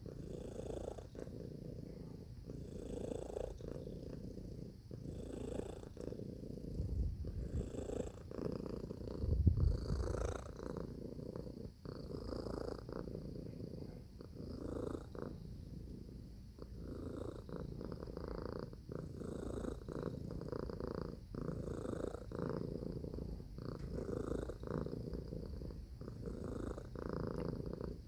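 Domestic cat purring steadily, the purr swelling and fading in cycles of about a second. A brief low thump sounds about nine seconds in.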